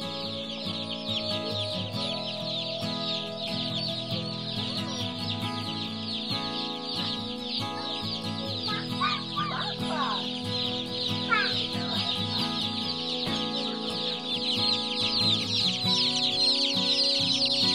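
Crowd of newly hatched Cornish Cross broiler chicks peeping nonstop, many short high falling peeps overlapping. The peeping grows louder near the end.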